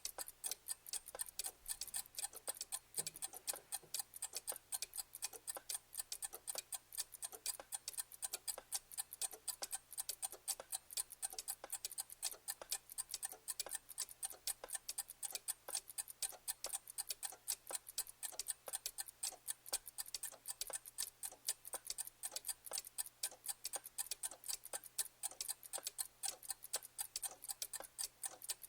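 A clock ticking in a quick, even rhythm of sharp clicks.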